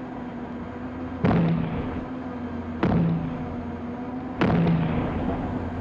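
Mark 10 (Limbo) three-barrelled anti-submarine mortar firing on a destroyer's deck: three loud shots about a second and a half apart, each dying away over a second, over a steady low hum.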